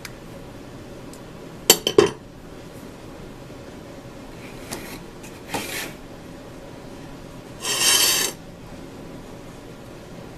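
Metal hand tools clicking and scraping against a small metal switch and a ceramic plate as needle-nose pliers work the switch loose from its wires. A sharp cluster of clicks comes about two seconds in, a couple of lighter knocks follow mid-way, and a short rasping scrape comes near the end.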